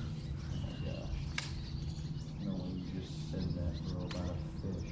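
Birds chirping faintly over a steady low hum, with two sharp clicks, one about a second and a half in and one about four seconds in.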